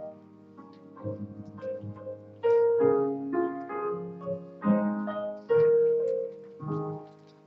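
Piano playing a hymn introduction, chords and melody in short phrases that fade away near the end.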